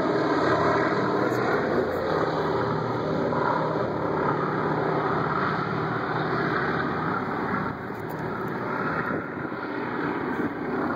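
Boeing B-17G Flying Fortress's four Wright R-1820 Cyclone radial engines running at takeoff power as the bomber climbs out, a steady propeller drone that slowly grows fainter as it flies away.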